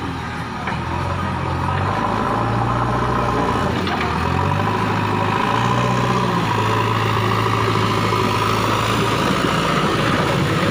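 Diesel engine of a JCB 3DX backhoe loader running under load while its front bucket pushes soil. The engine note steps up about two seconds in, dips briefly near the middle, then rises again and holds steady.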